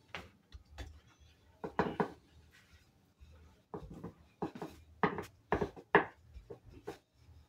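Wooden rolling pin rolling back and forth over bread dough on a wooden tabletop: a series of short rolling strokes and light knocks, sparse at first and coming about twice a second from about halfway through.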